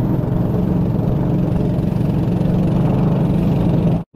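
Small boat's engine running steadily at cruising speed, with water rushing along the hull. The sound cuts out for an instant near the end.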